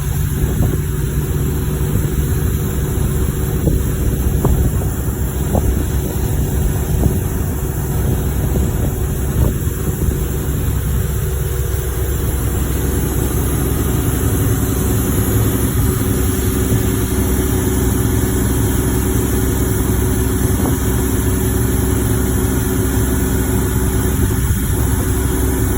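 Pile-driving machinery running steadily, an engine-like drone with a few sharp knocks here and there.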